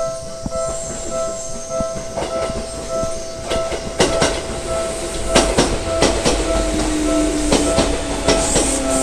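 Japanese railway level-crossing warning bell in the Seibu style, a repeating electronic two-tone ding at about two strokes a second, while a Seibu Chichibu Line train rolls through the crossing, its wheels clacking over the rail joints. In the second half a low whine from the train slowly falls in pitch.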